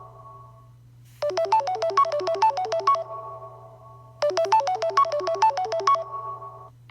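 Samsung Galaxy Note 10 ringtone: a short melody of quick, bright pitched notes, about six a second, played twice with a pause between, each time dying away.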